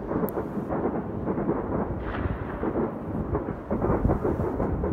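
Many distant fireworks and firecrackers going off across a city at once, their bangs and pops merging into a continuous rumbling crackle.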